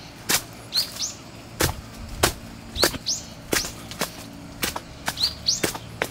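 Footsteps on stone steps strewn with dry leaves, a crisp step about every half second. A bird gives short rising chirps a few times between the steps.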